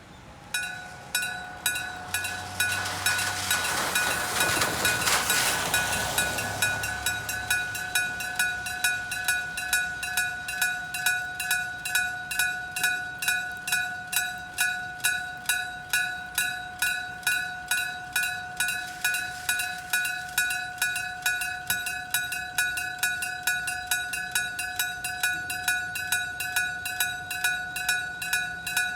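Electric striking-bell railroad crossing warning bell starting up and then ringing steadily, about two metallic strikes a second, each ringing on, signalling that a train is approaching. A broad rush of noise swells and fades a few seconds after the bell starts.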